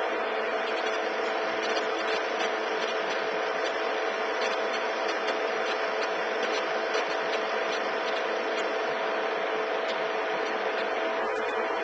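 Steady mechanical whirring hum with an even hiss and faint, irregular ticks, unchanging throughout.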